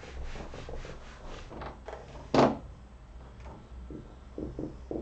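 Felt whiteboard eraser rubbed across a whiteboard in quick back-and-forth strokes, with a single sharp knock about two and a half seconds in and a few more wiping strokes near the end.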